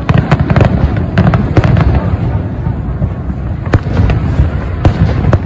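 Aerial fireworks bursting over the bay: a rapid string of sharp bangs and crackles, thickest in the first two seconds, over a continuous low rumble of shell reports.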